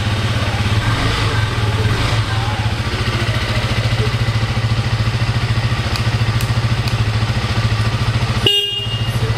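Brand-new KTM 200 Duke's single-cylinder four-stroke engine idling steadily on its first start out of the crate, running on a temporary unlock of its transport lock. Near the end the engine sound drops out for a moment and a short high-pitched beep sounds.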